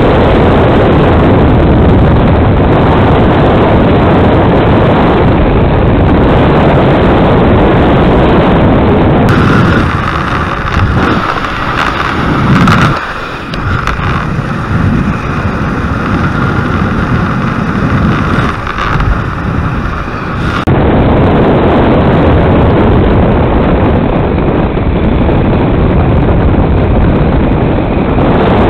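Loud, steady wind rushing over an action-camera microphone as a rider speeds down a zipline. From about 9 s to 21 s a quieter, clearer recording takes over, with a steady mid-pitched hum under the rush.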